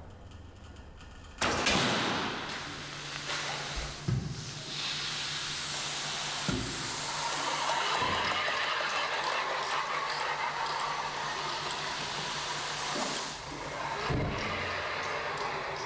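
A sharp snap about a second and a half in, as the crossbow is loosed. Then a long, steady hiss of sand pouring from a drum, with a few thuds, that dips near the end.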